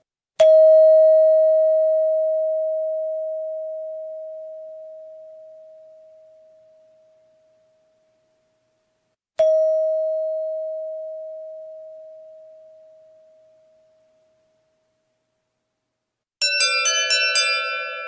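Doorbell chime: a single ringing tone struck twice, each fading away slowly over several seconds. Near the end a different chime rings in a quick run of about six two-note strikes.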